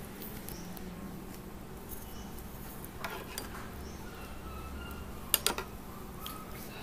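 A metal ladle stirring soup in an aluminium pot, with a few quick metal-on-metal clinks a little past five seconds in, over a faint steady low hum.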